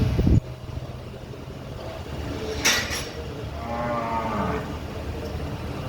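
A bovine lowing once, a call of about a second near the middle. Just before it come two sharp clicks, and a steady low hum cuts off in the first half-second.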